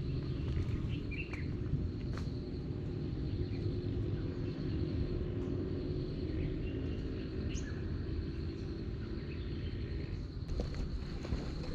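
Hillside trail ambience: a low rumbling haze, a steady high-pitched insect drone, and a few short bird chirps, with scattered light clicks.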